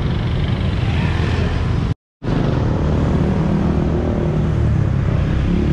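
Street traffic: motor scooters and a minibus driving past with their engines running. The sound cuts out completely for a moment about two seconds in, then the traffic noise resumes.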